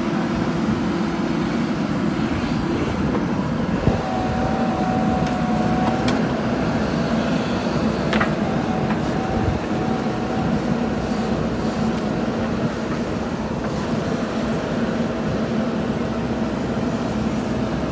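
JCB 3DX Super backhoe loader's diesel engine running steadily under load as the backhoe digs, with a thin whine that comes and goes from about four seconds in and a couple of sharp knocks.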